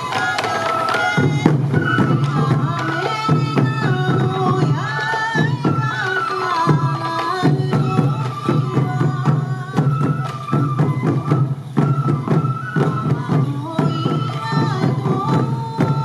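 Sansa odori festival music: strapped-on taiko drums beat a steady rhythm under a high, wavering melody from Japanese bamboo flutes (fue).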